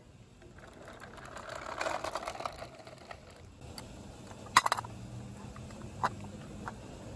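Diecast scale-model front-loader garbage truck handled by hand: a ratcheting plastic-and-metal rattle for about two seconds. A little past halfway comes a sharp cluster of clicks, the loudest sound, and then a single click.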